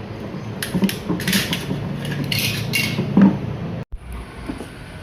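Clicks, knocks and scraping of hard parts being handled, cutting off abruptly about four seconds in.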